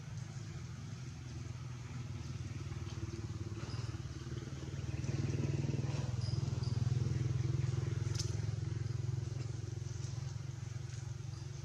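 A motor engine running with a steady low hum. It grows louder in the middle and eases off again.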